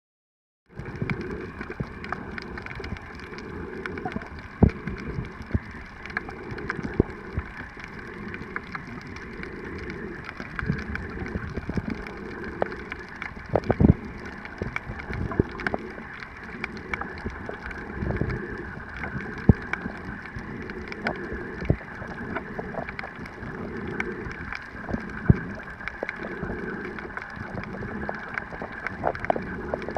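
Underwater ambience picked up by a camera in the water: a muffled, steady wash of water noise with scattered sharp clicks and knocks and a slow low throb. It starts about a second in.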